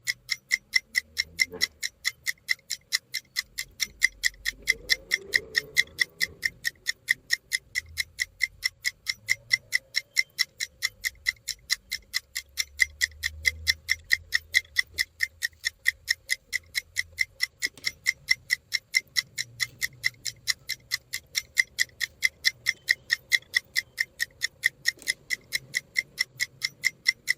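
Countdown timer ticking: fast, even clock-like ticks, about three or four a second.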